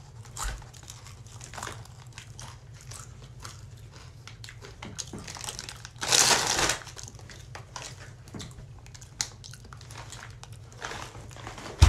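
Plastic Takis chip bag crinkling as it is handled, with scattered small crackles and one louder rustle about six seconds in.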